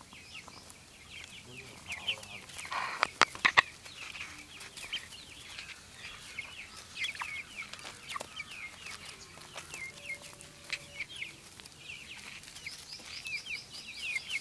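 Flock of young Giriraja chicks peeping continuously with many short, high, falling calls. A few loud sharp knocks come about three seconds in.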